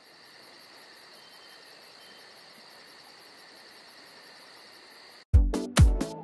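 Faint, steady chirping of night insects, with a high tone and a fast, even high-pitched pulsing. About five seconds in it cuts off and loud music with a heavy bass beat, about two beats a second, comes in abruptly.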